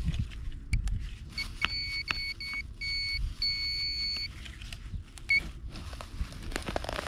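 Handheld metal-detector pinpointer beeping in a string of short beeps that run into a held tone for nearly a second, with one more short beep about five seconds in: it is signalling metal at the dig spot.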